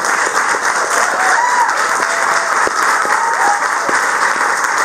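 Crowd applauding: dense, steady clapping throughout.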